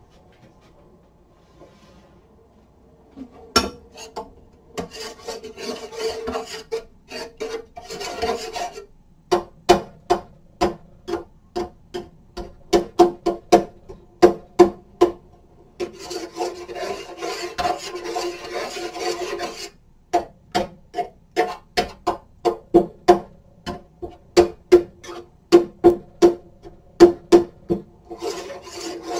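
A utensil scraping and knocking rhythmically in a cooking pot, about two strokes a second, with stretches of continuous scraping; the pot rings at a few steady pitches with each stroke.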